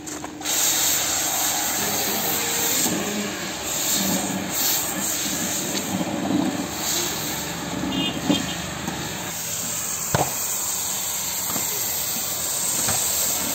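Pressure-washer foam lance spraying snow foam onto a car: a steady hiss that sets in about half a second in, with two sharp clicks around eight and ten seconds in.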